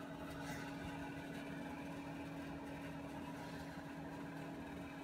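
Faint steady electrical hum of room background noise, a constant low drone with no distinct events.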